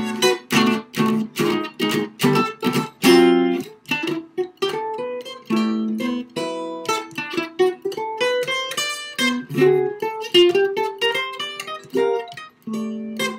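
Solo jazz guitar played chord-melody style: a steady run of plucked chords and melody notes, each ringing into the next, through a jazz waltz.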